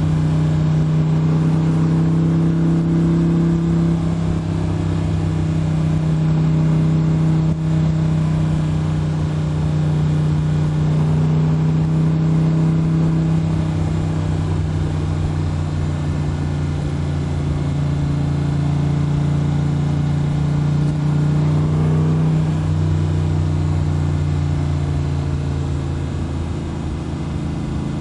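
Backdraft RT3 roadster's custom Windsor-based Ford 445 ci V8, breathing through custom headers, running steadily at highway cruise, heard from the open cockpit with road noise. The engine note drifts a little in pitch and eases off slightly near the end.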